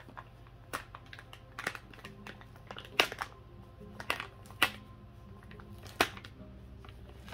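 A plastic packet being handled and worked open, giving a scatter of crinkles and sharp crackles. The loudest crackles come about three, four and a half, and six seconds in.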